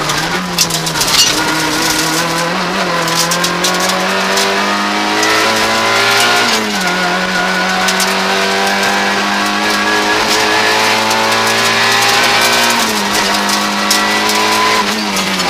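Rally car's engine heard from inside the cabin at hard throttle on a special stage. The revs climb, drop sharply about halfway through, hold high for several seconds, then fall again near the end, with scattered clicks and rattles over the engine note.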